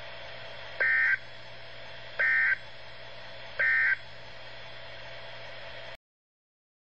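Emergency Alert System end-of-message signal over broadcast radio: three short two-tone digital data bursts about a second and a half apart over steady radio hiss, marking the end of the alert. The sound cuts off abruptly near the end.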